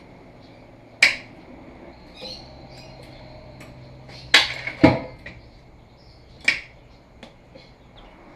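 Four sharp metal-on-metal knocks spaced a second or more apart, with two close together in the middle and a few lighter clicks between them. These are hammer blows on the car's rear suspension and driveline parts.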